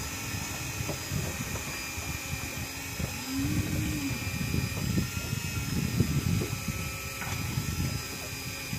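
Electric fishing reel whining steadily as its motor winds in line against a heavy load, over low, gusty wind and water noise around the boat.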